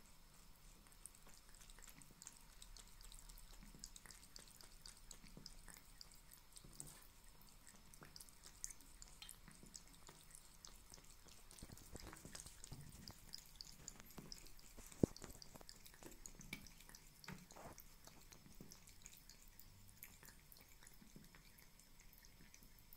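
Faint patter of a thin trickle of tap water falling into a ceramic bathroom sink, with small quick ticks as a Turkish Angora cat laps at the stream. One sharper click about two-thirds of the way through.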